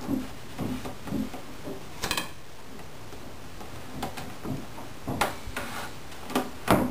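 Scattered light clicks and taps from hands working on an archtop guitar body and its binding. The loudest comes about two seconds in, another about five seconds in, and a sharp pair near the end.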